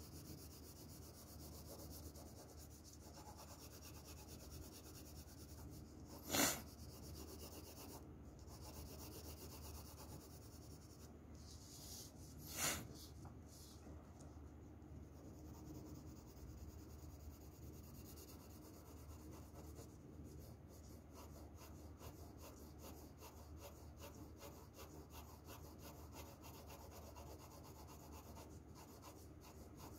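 Graphite pencil shading on paper: a soft, steady scratchy rubbing of the lead that turns to quick short strokes in the last third. Two short louder noises break in, about six seconds and about twelve seconds in.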